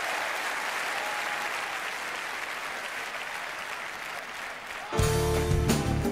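Large arena crowd applauding, the applause slowly dying away. About five seconds in, loud band music starts suddenly as the song begins.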